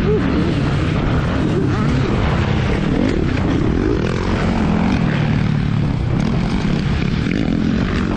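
Yamaha WR155R's single-cylinder engine running under riding load, its revs rising and falling as the bike is ridden around a motocross track.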